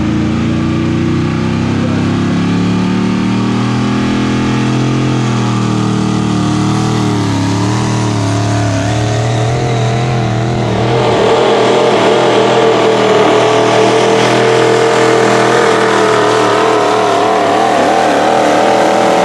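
Diesel 4x4 pulling truck's engine running hard under load as it drags the sled down the track, louder and higher-revving from about ten seconds in.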